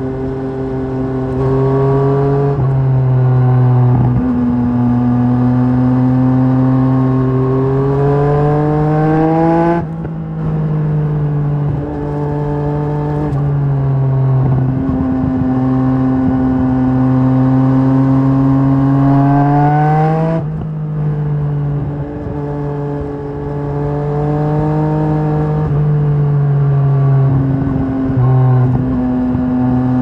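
Yamaha Tracer 900 GT's inline three-cylinder engine through a LeoVince aftermarket exhaust, under way on the road. Its pitch climbs slowly under throttle, then drops sharply as the throttle is closed, about ten seconds in and again about twenty seconds in.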